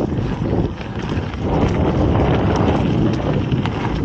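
Wind buffeting the microphone over the rumble of a mountain bike's knobby tyres running down a dirt trail, with a few sharp rattles of the bike over bumps.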